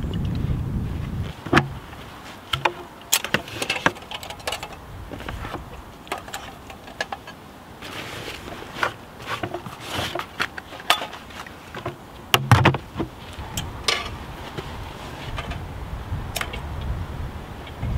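Camping gear being handled and rummaged through: a string of sharp clicks, clinks and knocks with rustling, the loudest about one and a half seconds in and about twelve and a half seconds in. A low wind rumble on the microphone at the start.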